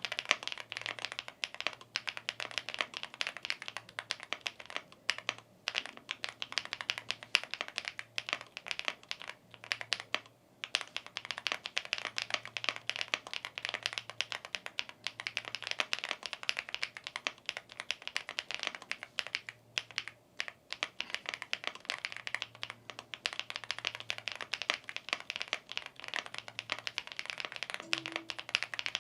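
Continuous fast typing on a Chilkey ND75 aluminium mechanical keyboard, many key clicks a second. The keyboard is in its top-mount setup: all silicone parts removed and the switch plate screwed to the top shell.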